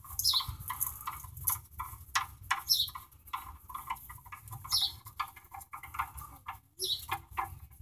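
A bird calling a short, high, falling chirp about every two seconds, over a low hum and scattered faint clicks.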